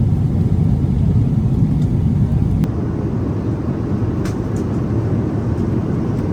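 Boeing 777 airliner cabin noise: a loud, steady low rumble of the jet in flight. About a third of the way in it changes abruptly to a slightly quieter rumble, with a few faint clicks.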